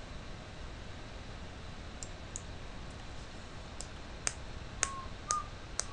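Computer mouse button being clicked: a few single clicks at first, then quicker repeated clicks in the last two seconds, some followed by a brief tone.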